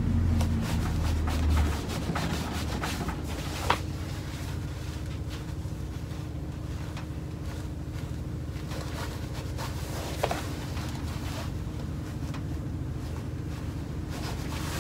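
Neoprene wetsuit being handled and rubbed on a work table, over a steady low hum, with two short sharp clicks.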